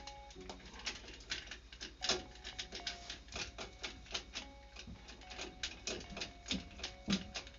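Irregular clicks and light metallic clinks, several a second, of wires and a hand tool being worked at a circulator pump's wiring box.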